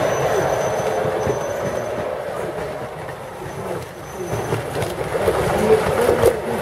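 Large-scale model train rolling past on its track: the wheels rumble and click over the rails. The sound dips about halfway through and builds again as goods wagons pass, with a few sharp clicks near the end.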